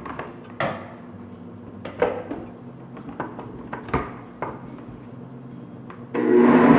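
A handful of sharp clunks as produce and the lid knock against a plastic blender jar, then, about six seconds in, a Blendtec blender starts up and runs loudly, chopping produce and water into a green juice pulp.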